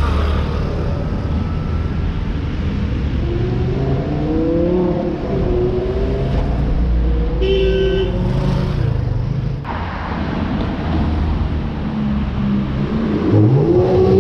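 Road traffic: car engines running and passing in a steady low rumble, with a short car-horn honk about seven and a half seconds in. Near the end a Porsche 911's engine revs up sharply as it accelerates past close by.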